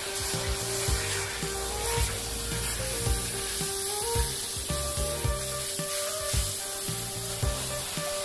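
Garden hose spray nozzle spraying water onto a wet dog's coat: a steady hiss. Background music with a steady beat plays along with it.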